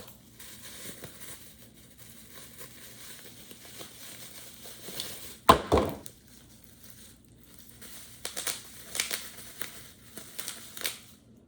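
Packaging being handled and unwrapped, with crinkling and rustling, a sharp loud crinkle about halfway through and a run of crinkles near the end.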